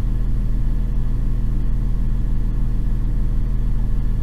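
Steady low drone of a diesel multiple-unit train's engine idling, even and unchanging.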